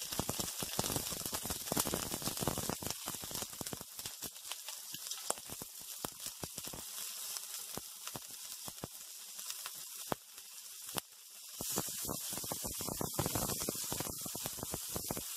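Ginger, shallot, cinnamon stick, star anise and dried tangerine peel sizzling and crackling in a tablespoon of hot oil in a non-stick wok over medium heat. The sizzle dips briefly about two thirds of the way through, then picks up again.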